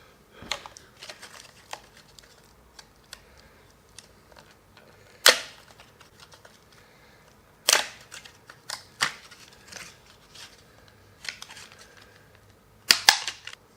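Scattered sharp clicks and knocks from PC parts being handled and fitted together, with louder snaps about five seconds in, about eight seconds in, and a quick double snap near the end.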